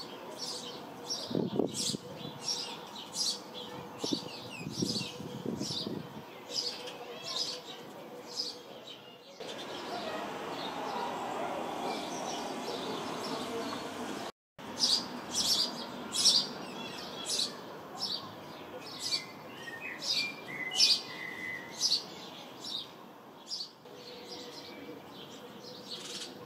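House sparrows chirping: a run of short, sharp chirps repeated again and again. Around the middle the chirping stops for several seconds, leaving a steady background noise, then the sound cuts out briefly before the chirps start again.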